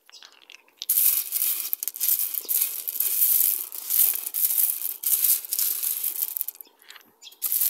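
A hand stirring a pile of tumbled rocks in a wire-mesh strainer, the stones clattering and grinding against each other and the metal mesh. It starts about a second in, runs as dense rattling, and ends with a brief final rattle near the end.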